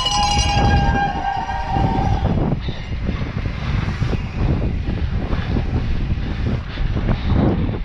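Mountain bike ridden fast down paved streets: steady wind buffeting on a helmet-mounted camera's microphone and tyre rumble on the asphalt. A loud held horn-like tone sounds over it for the first two seconds, then stops.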